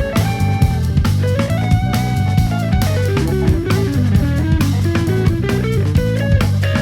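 Jazz octet playing live over drum kit and electric bass, with a single-note melody line running in quick steps and a falling run about three seconds in.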